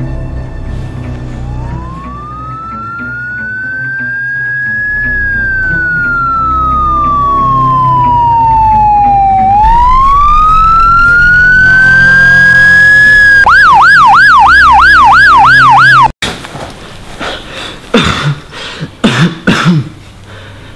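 Siren wailing: one tone rises slowly, falls slowly and rises again, then switches to a fast yelp of about three sweeps a second, growing steadily louder. It cuts off abruptly, and softer irregular sounds follow, over a low music drone.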